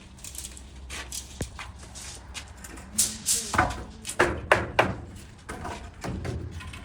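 Scrapes and knocks of manual work, with a cluster of sharp knocks and scraping hisses between about three and five seconds in.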